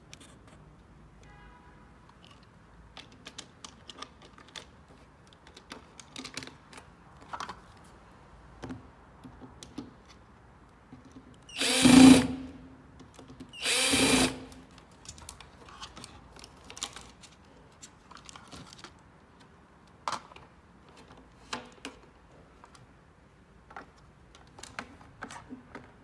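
Cordless drill-driver running in two short bursts about two seconds apart, with light clicks and knocks of handling between them.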